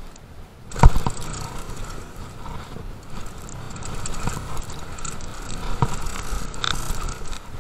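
Mountain bike rattling down a rough dirt trail: tyre noise with the chain and frame clattering, a loud clunk about a second in and a few smaller knocks near the end.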